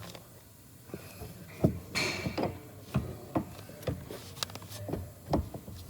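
Irregular clicks and knocks of metal parts being worked together as the new steering column's shaft is pushed and wiggled onto the steering rack's splined shaft, which is not going in.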